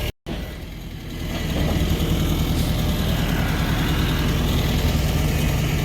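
Vehicle engine running steadily, getting louder a second or two in after a brief dropout at the start.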